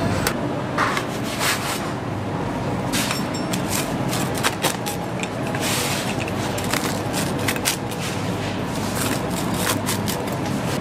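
Metal rolling pizza cutter scraping and crunching through a charred crust on a wooden board, a run of short scrapes and clicks over a steady low hum.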